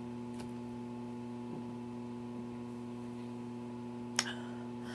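Steady electrical mains hum, with one short sharp click about four seconds in.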